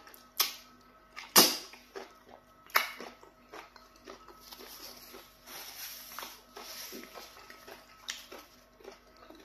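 Close-miked eating of fufu with okra soup: four sharp, wet lip smacks, the loudest about a second and a half in, with softer chewing and mouth sounds between them.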